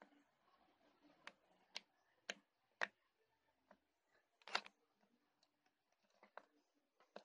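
Fluffy slime being poked and squished by fingers, giving sharp little clicks and pops, about two a second at first and then more sparsely.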